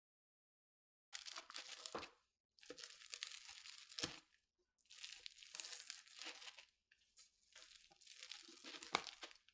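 Large rocking pizza cutter pressed down through a baked pizza crust on a wooden board: crackling, tearing crunches starting about a second in, with sharp knocks of the blade meeting the board three times.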